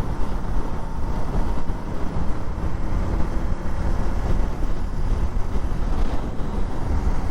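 KTM Duke 200 motorcycle on the move: a steady drone of engine and road noise under a rush of wind on the microphone.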